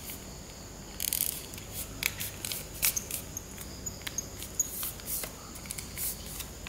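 A folded strip of A4 paper being creased and pressed by hand, rustling and crinkling, with scattered sharp crackles from about a second in.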